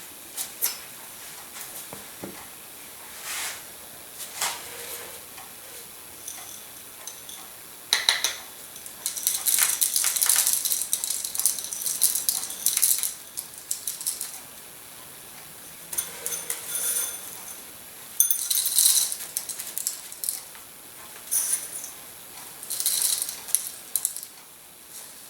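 Dry peppercorns rattling and clinking into a Cole & Mason pepper mill, and the mill grinding them in several separate bursts, the longest about four seconds. The grinding teeth are spaced wider than stock by an added washer for an extra-coarse grind.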